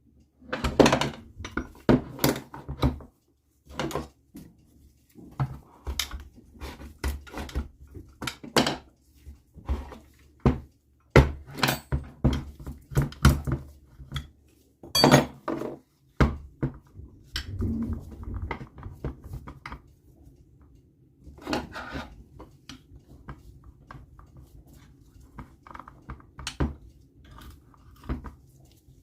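Irregular metallic clinks, taps and knocks of hand tools and small engine parts being handled during engine disassembly, with a faint steady low hum underneath.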